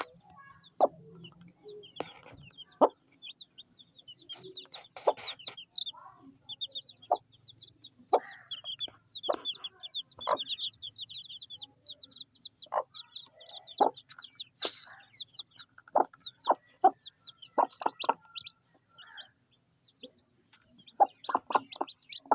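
A hen clucking among baby chicks peeping in quick high-pitched runs, with short sharp clucks or pecks scattered throughout.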